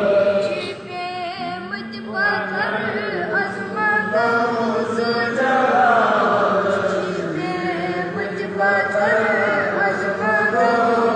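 A Kashmiri naat, a devotional Islamic song, sung as a melodic chant with long, wavering held notes.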